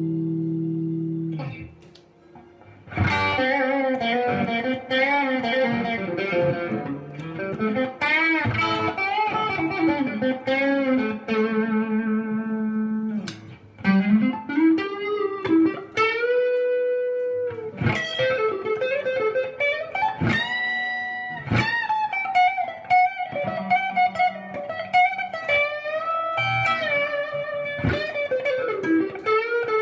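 LsL Saticoy electric guitar played through an amp: a chord rings out and is stopped about two seconds in, then single-note lead lines follow with string bends and vibrato, including a few long held notes.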